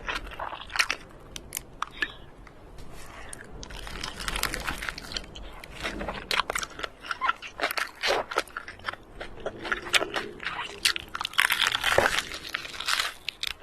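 Close-miked crunchy eating: irregular bites and chewing crunches of crisp food, many sharp cracks in quick succession.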